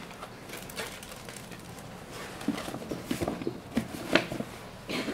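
A cardboard shoe box and its contents being handled: tissue paper and a cloth dust bag rustling, with scattered light taps and knocks from the box, busier in the second half.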